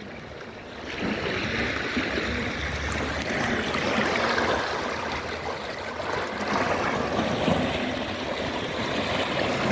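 Water washing and rushing at the shore, a steady noisy wash that rises about a second in and swells gently up and down.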